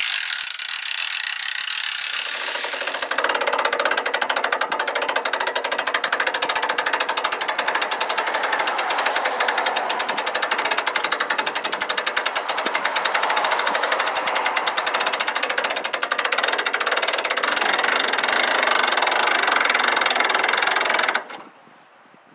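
Boat winch being cranked to haul a loaded engine hoist up onto a trailer, its ratchet pawl clicking rapidly and evenly under load. The clicking grows louder about two seconds in and stops abruptly about a second before the end.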